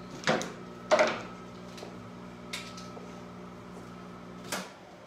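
Microwave oven humming steadily as it runs, with two sharp knocks in the first second and a lighter one about halfway. Near the end the door release clicks as the door is opened and the hum cuts off suddenly.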